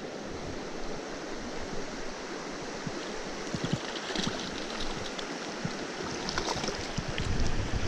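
Mountain stream water rushing steadily over rocks, with a few short sharp sounds in the second half.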